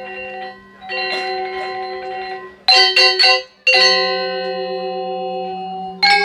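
Balinese gamelan: bronze metallophones ringing in long, shimmering sustained chords over a low drone. About two and a half seconds in come three sharp unison strikes and a loud struck chord that rings on, and quick interlocking figuration starts near the end.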